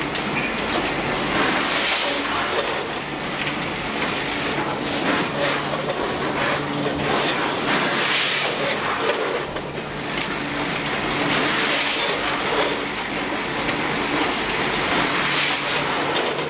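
A nugget-packaging line running: a steady motor hum from the inclined conveyor and multihead weigher. Over it, a rattling clatter swells every three to four seconds as nuggets pour through the weigher's dimple-plate stainless hoppers.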